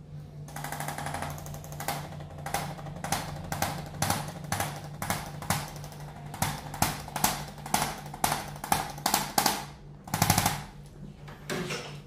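Handheld electric chiropractic adjusting instrument firing short bursts of rapid-fire clicks, about two to three bursts a second, as it delivers adjusting thrusts along the neck and upper back. The bursts stop about a second before the end, with a low steady hum underneath.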